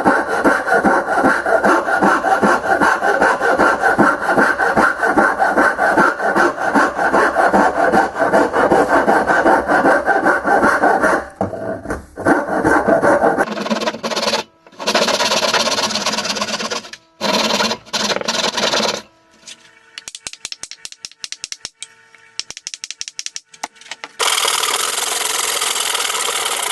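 A rasp working a wooden hammer handle clamped in a vise, in rapid repeated strokes for about eleven seconds. After that a handsaw cuts into the end of the handle in short bursts. A quieter stretch of light clicks follows, and steady sawing returns near the end.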